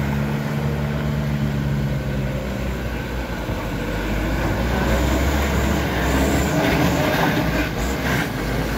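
Diesel engine of a Mitsubishi light truck working uphill as it approaches and passes close by, with knocks and rattles from the truck over the bumpy road in the second half.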